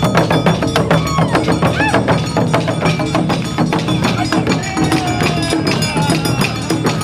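Live Awa Odori festival drumming: large taiko and shime-daiko beating a fast, steady rhythm, with other instruments of the band playing over it.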